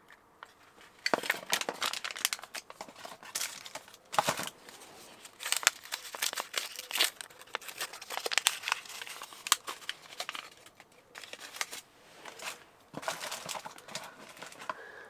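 Packaging crinkling and tearing in irregular bursts as model-kit parts are unwrapped and handled, starting about a second in with a short pause near the end.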